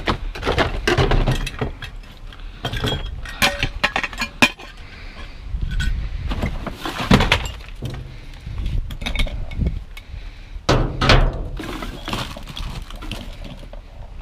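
Rummaging through junk in a dumpster: repeated clatters, clinks and knocks as items are shifted and knocked against each other.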